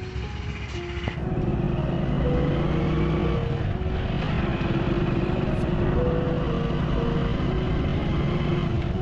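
Motorcycle riding along, its engine and the wind and road noise heard through a GoPro Hero 9 Black mounted on the rider's helmet. The sound swells up suddenly about a second in and then holds steady.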